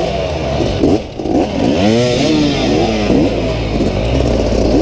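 Two off-road dirt bike engines revved in short throttle bursts, their pitch swooping up and down again and again, as the riders work the throttle to climb a steep, muddy section of trail.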